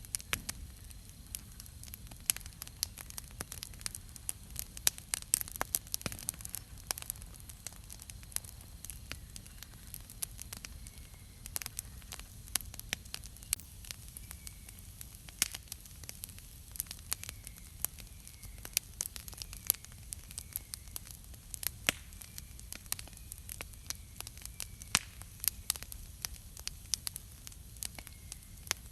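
Wood campfire crackling, with frequent irregular sharp pops of burning wood over a steady low background noise.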